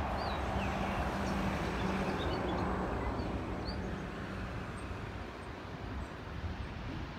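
Distant jet engine noise from a Boeing 737-700's CFM56 engines as the airliner rolls out after landing: a steady broad rumble with a low hum that eases off about four seconds in.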